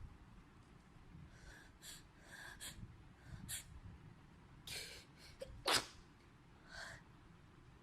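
A person sneezing from a nasal swab test: a few short breaths and sniffs, then one sharp sneeze a little before six seconds in, the loudest sound, and a softer burst about a second later.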